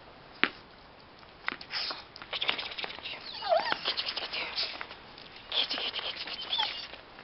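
Dog's claws clicking and pattering on a concrete floor as it walks about, with a few short high squeaks that rise and fall.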